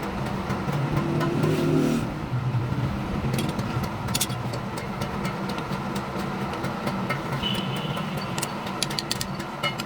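A steady motor hum that swells for about a second near the start, with scattered light clicks and taps over it.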